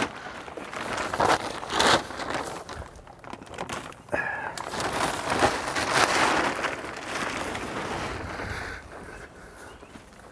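Plastic tarp being pulled and handled, rustling and crinkling in irregular bursts that get quieter toward the end.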